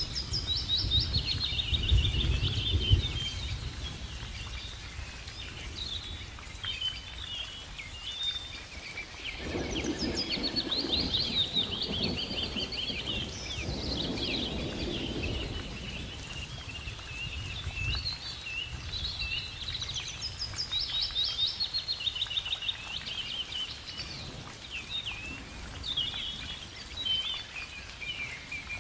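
Birds chirping and trilling throughout, over heavy water splashing near the start and again from about ten seconds in, as a crocodile lunges out of the river at a big cat.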